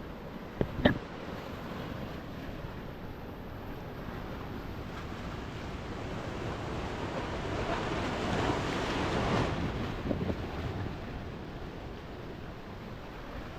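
Sea surf washing on the shore, with wind buffeting the microphone; a wave builds and breaks, loudest about eight to ten seconds in. A single sharp knock just under a second in.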